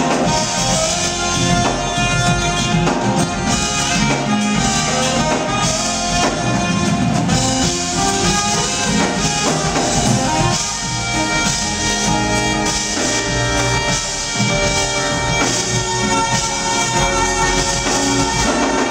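Live smooth jazz band playing: a saxophone leads over electric guitar, electric bass and drums.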